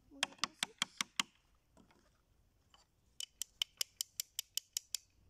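Quick, even taps of a small hammer chipping at a plaster excavation block to free the model bones, about five taps a second. There is a short run at the start and a longer one from about three seconds in.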